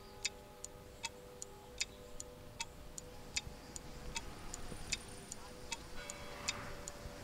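Clock ticking steadily, about two and a half ticks a second, faint over a low steady hum.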